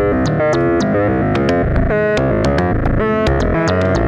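Make Noise Eurorack modular synthesizer playing a fast sequence of short pitched notes, with regular sharp clicks over them. Brighter, buzzier notes sound about two and three seconds in.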